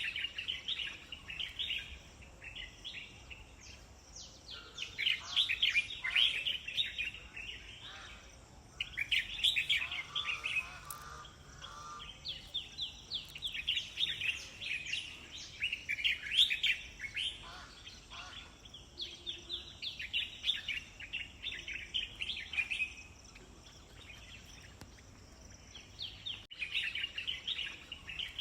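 Songbirds singing: phrases of rapid, high chirping notes a few seconds long, repeated with short pauses between them.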